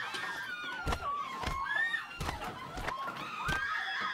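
Film fight sound effects: a series of heavy thuds from kicks and stomps on a man lying on the floor, about one a second, over a high wavering cry.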